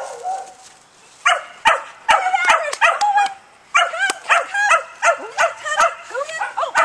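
A young Border Collie puppy's high-pitched yips and barks, short calls about two or three a second, starting about a second in.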